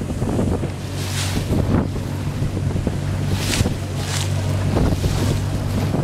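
A boat's motor hums steadily under the rush of churning sea and surf breaking against rock, with wind buffeting the microphone. Several louder splashing surges come through, about one and two seconds in and again around three and a half to four seconds.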